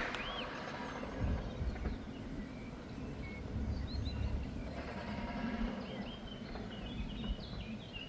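Quiet outdoor background: small birds chirping now and then over a low rumble.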